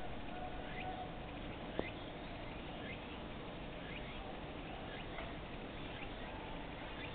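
Short high chirping calls, repeating about once a second, over steady background noise, with a single sharp click near two seconds in.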